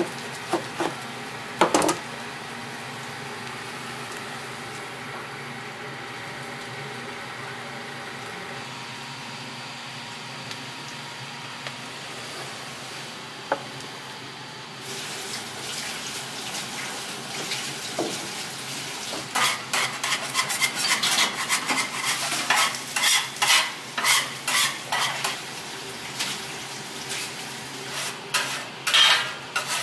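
Restaurant kitchen sounds. A chef's knife cuts through a cheesesteak and knocks on the cutting board a few times at the start, over a steady kitchen hum. From about halfway, frying sizzle comes up with a dense clatter of dishes and utensils.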